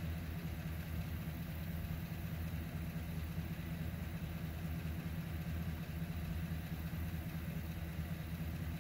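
A steady low engine hum, like a motor idling, with no change in level.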